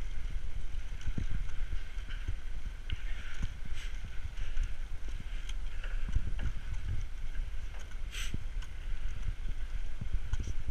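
Bicycle riding over a snow-covered path, heard through a body-mounted camera: a steady low rumble of wind and jolts on the microphone, with light clicks and rattles from the bike over the snow. One sharper click comes about eight seconds in.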